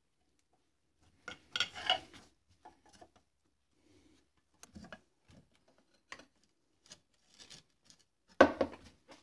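Metal clinks and scrapes as the two halves of a Bosch alternator's casing are worked apart by hand, with two louder clattering bursts, about a second and a half in and near the end, and small scattered clicks between.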